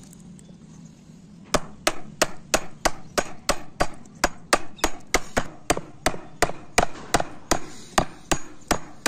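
A wood chisel being struck with quick, even blows, about three a second, as it chops a V-notch into a softwood board. The blows start about a second and a half in.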